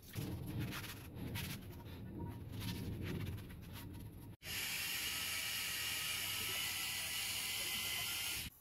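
A vise body part is sloshed and swished through a tub of liquid, with irregular splashing. About four seconds in, this cuts to a motor-driven wire wheel brushing a cast metal vise part, a steady high hiss that cuts off suddenly near the end.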